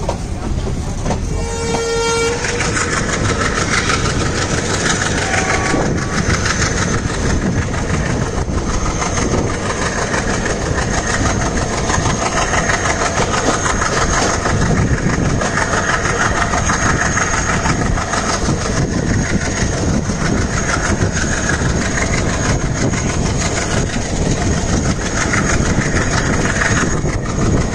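Diesel-hauled passenger train running, with a steady loud rumble of wheels on rail. A short locomotive horn blast sounds about a second in.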